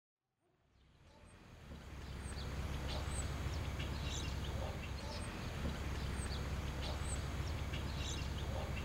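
Outdoor ambience fading in: scattered short, high bird chirps over a steady low hum.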